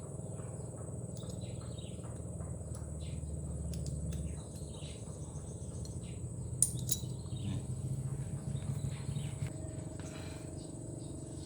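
Steady high-pitched cricket trill over a low hum, with scattered small clicks and taps from turbocharger parts being handled and a sharper tap about six and a half seconds in.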